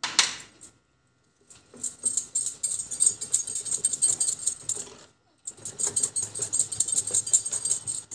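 Wire whisk beating thin cake batter in a glass bowl, the wires clicking rapidly against the glass in two long runs with a brief pause between. A short knock comes at the very start.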